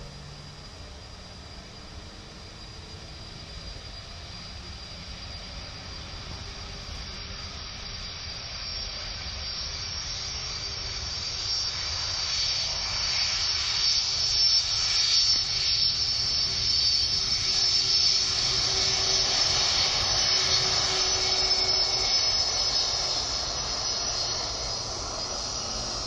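Boeing 747-400 freighter's four jet engines running as it rolls along the runway: a roar with a steady high whine on top, growing louder as the jet nears and passes, loudest about two-thirds of the way through.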